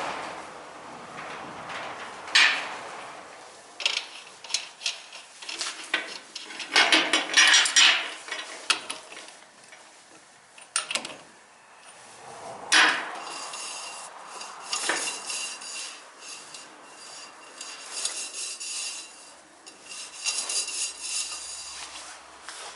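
Metal tools and parts clinking, knocking and rattling during repair work, in irregular strikes, several of which ring on briefly.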